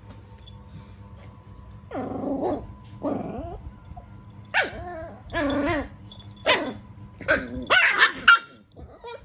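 Puppies barking and growling in play-fighting: a run of about seven short, bending yaps and growly barks over several seconds, the last ones loudest and highest.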